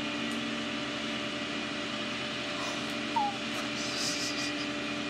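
Vehicle engine idling with a steady hum. A single short falling bird chirp comes about three seconds in.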